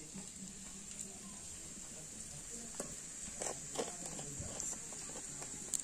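Light clinks and scraping of small steel bowls as turmeric spice paste is mixed by hand, with a few sharper taps about three to four seconds in. A steady high hiss runs underneath.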